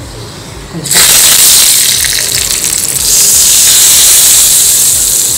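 Hot-oil tempering of mustard seeds, urad dal and curry leaves sizzling loudly as it is poured onto coconut chutney: a sudden, steady hiss that starts about a second in.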